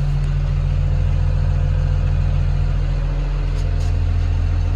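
Komatsu D51PX-22 bulldozer's diesel engine running steadily at a constant speed, with a deep, even hum.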